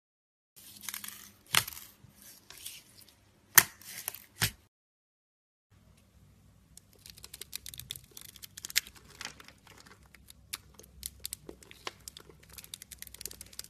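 Fingers squeezing red slime full of clear plastic beads: crackles with a few sharp pops, the loudest about three and a half seconds in. After a short gap, a knife blade cutting through a bar of soap into small cubes, a dense run of crisp ticks and crackles.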